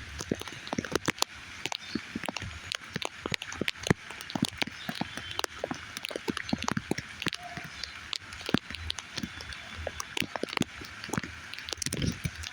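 Rain falling, with many irregular drops tapping sharply close by over a steady hiss.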